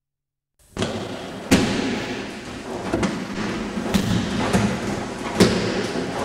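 Judo breakfalls on tatami mats: bodies and arms slapping down onto the mats in sharp thuds, four loud ones a second or so apart, echoing in a large hall over steady background noise. The sound cuts in about half a second in.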